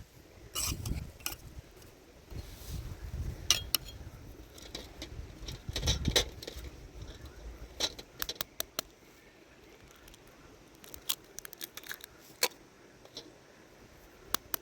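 Light clicks and clinks of small hard objects being handled, scattered at irregular times. There are a few soft thumps near the start and about six seconds in.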